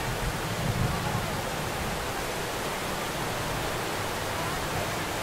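Steady background din of a busy night market, an even hiss with faint distant voices, a little fuller about a second in.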